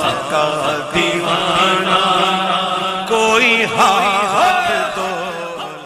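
Male voice singing a naat, an Urdu devotional poem, in a long ornamented melodic line over a steady low drone, fading out near the end.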